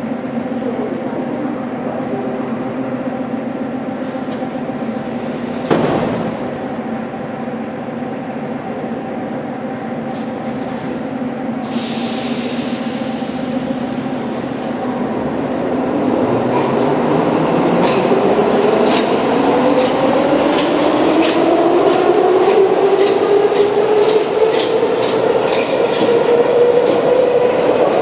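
Type 81-717.2/714.2 metro train standing at the platform with a steady hum, a thud as its doors shut about six seconds in and a short hiss of air about twelve seconds in. It then pulls away: the traction motor whine rises steadily in pitch and grows louder, and the wheels click over rail joints.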